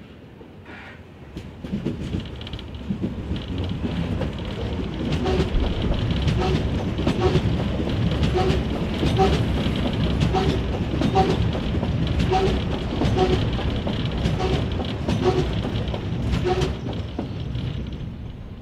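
Berlin U-Bahn small-profile train passing close by on a steel truss viaduct, its wheels clacking in a regular rhythm over rail joints and points under a heavy running rumble. It grows louder about two seconds in and fades near the end as the last car goes by.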